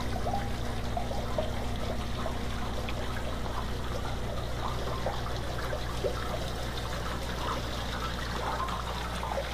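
Wash water trickling and splashing from the water bar onto the deck of a gold concentrating table, over a steady low machine hum.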